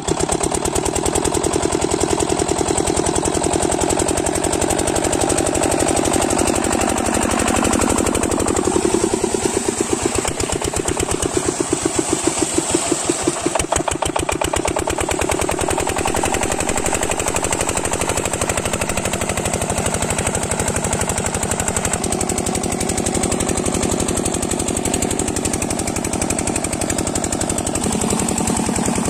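Single-cylinder diesel engine of an 8 hp water pump set running with a steady, rapid firing beat while it drives the pump.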